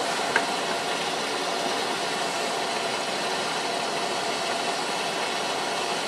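A 90% high-efficiency gas furnace running with a steady hum and rush of air. Its draft inducer blower motor adds extra noise: the motor has gone bad and is due to be replaced.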